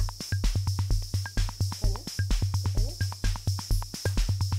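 Electronic music with a steady, fast drum-machine beat and heavy bass.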